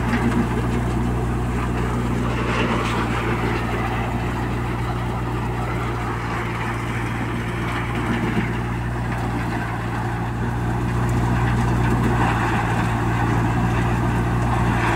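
Groundnut stripping machine running while fresh peanut plants are fed in: a steady, engine-driven low hum with a noisy rattle of vines and pods through the drum above it, a little louder about eleven seconds in.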